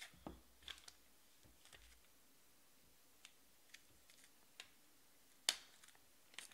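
Scattered light clicks and taps of clear hard plastic card cases being handled and knocking against each other, with one sharper click about five and a half seconds in.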